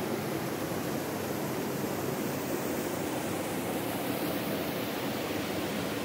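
Shallow hot-spring river running steadily over gravel and stones, a constant rushing with no breaks.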